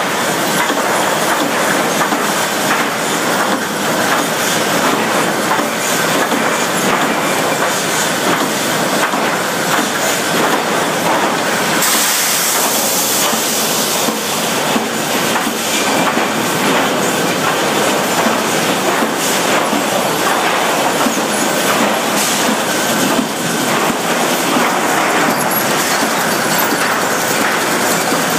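Lumber grading line running: chain conveyors and rollers carrying boards sideways, making a loud, steady, dense rattle of chains and boards. There is a brief hiss about twelve seconds in.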